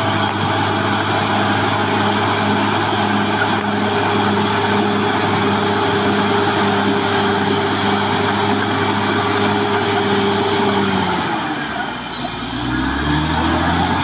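Caterpillar D6R XL bulldozer's diesel engine running steadily under load as it pushes earth, then dropping in pitch about eleven seconds in and climbing back up near the end.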